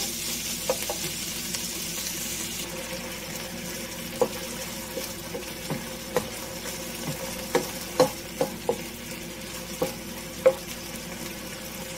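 Diced boneless chicken with onion and garlic sizzling steadily in oil in a nonstick wok, stirred with a wooden spatula that knocks and scrapes against the pan every second or so.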